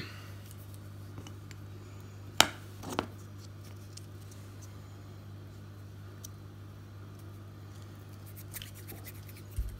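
Two sharp metallic clicks about half a second apart, a couple of seconds in, as a freshly soldered two-pin battery connector is freed from a helping-hands alligator clip. A steady low electrical hum runs underneath, with a few faint handling ticks and a light knock near the end.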